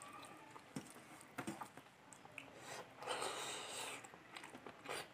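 Quiet close-up eating sounds: soft chewing and mouth clicks as fish curry and rice are eaten by hand, with fingers picking food off a steel plate. A breathy noise lasts about a second around three seconds in.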